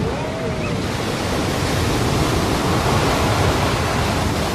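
Large storm waves breaking and surging, a steady loud rush of surf that swells slightly in the second half.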